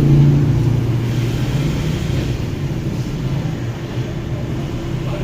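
Motorstar 150N underbone motorcycle's single-cylinder engine running through an SC Project aftermarket muffler: a deep, steady exhaust rumble, a little louder in the first second or so.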